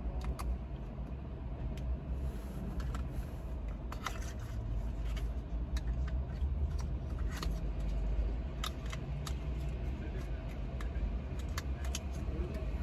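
Steady low rumble inside a car cabin, with scattered small clicks and taps as a lip oil tube and its applicator wand are handled and capped.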